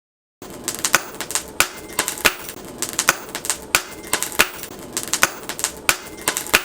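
Hammer striking steel on an anvil: sharp, irregular metallic blows, about two strong ones a second with lighter taps between, over a steady hum.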